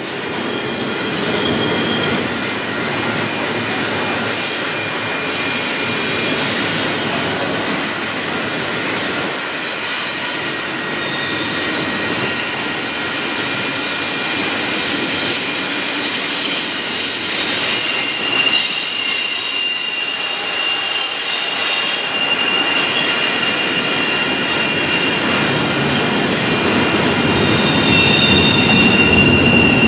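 Double-stack intermodal container train rolling past close by: a steady rolling noise of steel wheels on rail, with high wheel squeals that come and go, one held steady through the second half.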